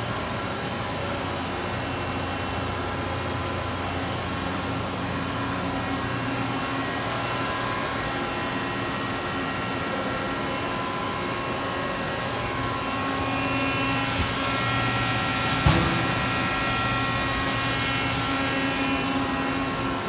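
Mori Seiki SL-25B CNC turning center running: a steady machine hum with several held tones, joined by a higher whine from about two-thirds through. A single sharp knock comes about three-quarters of the way through.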